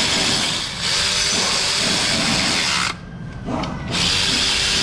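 Quarter-inch cordless electric ratchet running bolts down on an engine bracket in bursts: a short run ending just under a second in, a longer run of about two seconds, a brief pause, then another run starting near the end.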